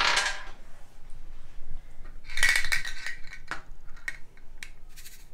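A small white sound-memory game cube being shaken by hand, its contents rattling inside. There is a short rattle at the start and another about two seconds in, then a few light clicks as the cube is tapped or set down on the game board.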